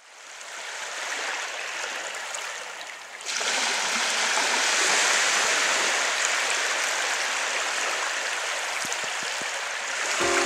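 Waves washing on a sandy shore, a steady rushing noise that fades in, then turns louder about three seconds in. Music begins right at the end.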